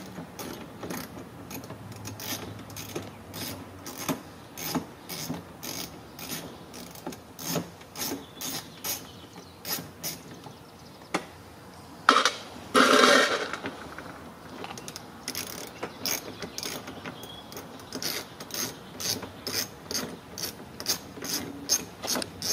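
Hand ratchet and socket unscrewing a bumper-cover bolt at the wheel well: a steady run of ratchet clicks, about two to three a second. A brief, louder clatter about halfway through.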